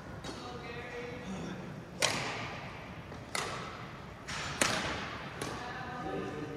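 Badminton rally: racket strings smacking the shuttlecock, about six sharp hits spaced roughly a second apart, each with a short echo from the large hall.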